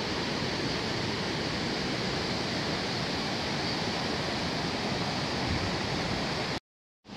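A river in strong flow, water rushing and churning over a shallow, rocky bed as a steady hiss; it cuts off suddenly near the end.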